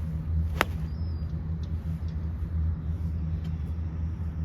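A golf iron strikes the ball once, a sharp click about half a second in, over a steady low rumble.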